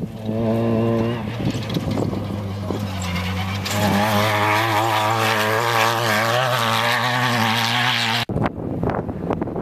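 Off-road desert race car engine running hard, its pitch wavering up and down. About eight seconds in it breaks off suddenly into a rougher, noisier clatter.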